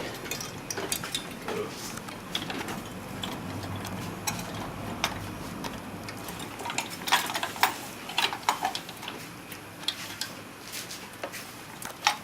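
Scattered sharp clicks and knocks of plastic and metal as a CPU heatsink and fan are fitted onto a computer motherboard, with a cluster of clicks about seven to nine seconds in.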